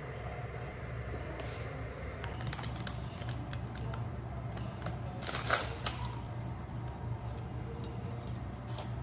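Plastic packaging of Korean seasoned nori crackling and clicking as the pack is opened and the sheets are lifted out of their plastic tray, with a louder burst of crinkling about halfway through, over a steady low hum.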